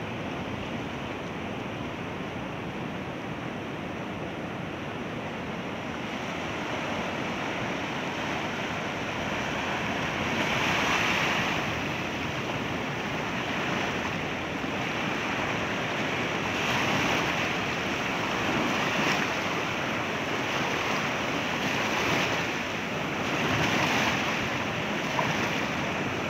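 Ocean surf washing in over a shallow rocky reef, a steady rush that swells louder every couple of seconds in the second half, with wind on the microphone.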